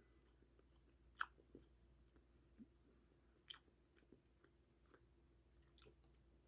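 Faint chewing of a mouthful of chicken fried rice, with three soft sharp clicks: one about a second in, one midway and one near the end.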